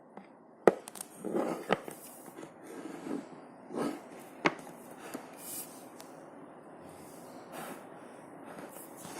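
Hand-played slime: soft squishy squelches broken by a few sharp pops, the loudest less than a second in.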